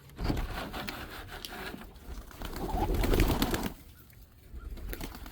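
Chickens making low, cooing calls over rustling, loudest a little past the middle and dying down near the end.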